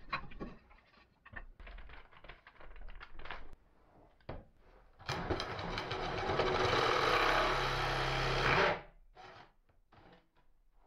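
Cordless DeWalt drill spinning a square hardwood stick into a dowel-making jig's cutter, shaving its end into a round tenon: a steady cutting and whirring run of about three and a half seconds that starts about five seconds in and stops abruptly. Before it, a series of knocks and clatter from handling the wood and drill, and a few small taps after.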